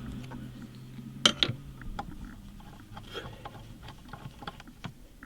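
Hand tool working the T20 Torx screw out of the plastic battery floor cover: one sharp loud click about a second in, then scattered small clicks and ticks.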